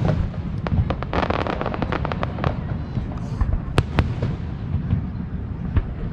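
Fireworks going off: a constant low rumble of booms with many sharp pops, a dense burst of crackling about a second in, and two loud bangs close together around four seconds in.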